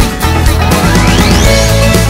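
Background music with a steady beat, with a rising sweep in pitch about a second in.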